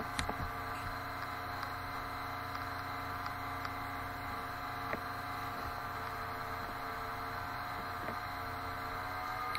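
Steady electrical mains hum in the recording's background, with a few faint mouse clicks.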